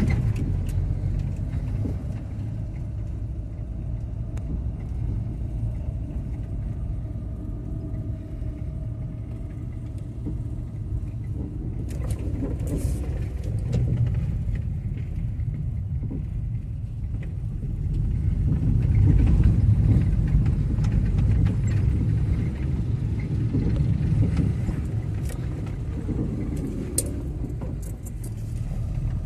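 Fiat Doblò 1.8 on the move, a steady low rumble that grows louder for a few seconds past the middle, with a few sharp knocks. The noise is traced to a worn stabilizer bar bushing.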